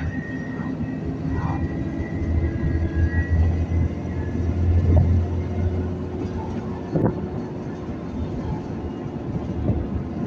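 Alexander Dennis Enviro400 Trident double-decker bus under way, heard from inside the saloon: a steady low drone from the drivetrain that grows louder around the middle, with a faint high whine in the first few seconds. A short knock or rattle comes about seven seconds in.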